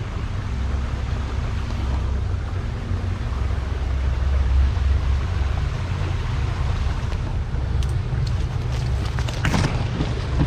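Steady low rumble of a body-worn camera being jostled as someone crawls through a dense rhododendron thicket. Near the end come scattered crackles and knocks of twigs and branches snapping and scraping, the loudest a little before the end.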